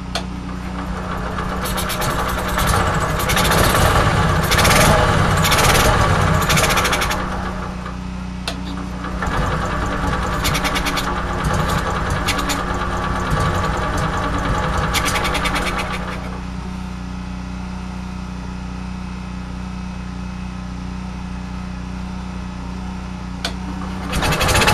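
Cold gasoline generator engine cranked by its electric starter in two long bursts, starting about 2 and 9 seconds in, with its carburetor choked by hand. A steady low engine hum runs underneath, and a much louder engine noise starts right at the end.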